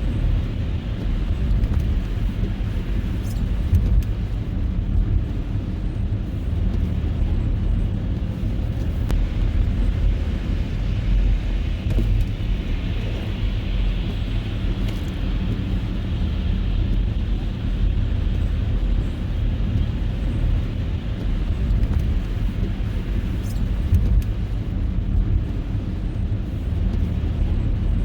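Car driving on a snow-covered road: a steady low rumble of engine and tyre noise that does not let up.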